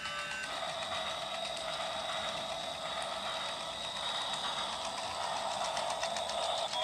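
A battery-powered toy train running: its small electric motor whines steadily over a fast, even clicking of gears, with the whine shifting slightly in pitch about half a second in.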